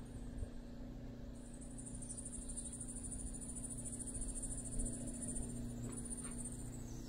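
Steady low hum of an electric trolling motor pushing the kayak, over a low rumble, with a thin high hiss coming in about a second and a half in and fading before the end.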